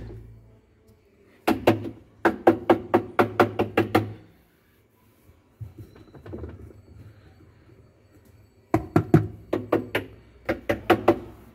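Quick runs of knocks and taps on the drum and pulsator inside a Samsung top-load washing machine, as a hand knocks at and handles the parts: one run early on, a quieter stretch with a few faint taps, then a second run near the end.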